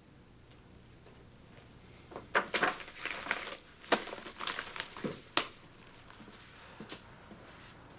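Papers being handled and gathered up, a run of sharp rustles and crinkles about two to five and a half seconds in, with a few softer ones later.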